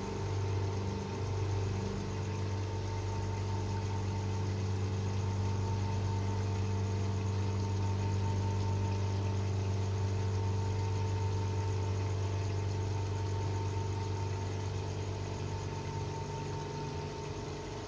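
A steady, low mechanical hum, like an idling engine or machine running, with a fainter higher tone over it and no change throughout.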